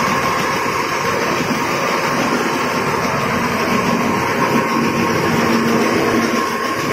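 Snack-production machinery running steadily: a continuous mechanical din with a constant low hum and a higher steady whine.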